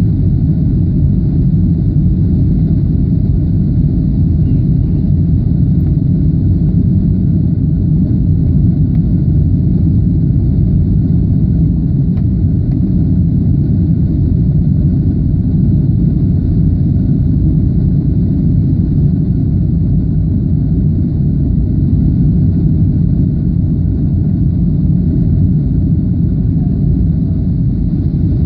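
Jet airliner cabin noise on approach: a steady low rumble of engines and rushing air heard from inside the cabin, with a faint steady high hiss above it.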